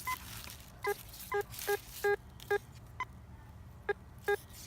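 Metal detector giving a repeated mid-tone beep over a buried target, about eight short beeps of the same pitch with two higher beeps among them. It is a repeatable mid-tone signal, the mark of a target worth digging.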